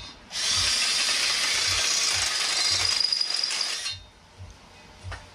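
Hand-held power tool cutting metal on a flexplate, opening up its bolt holes. It runs steadily with a high, hissy whine for about three and a half seconds, then cuts off.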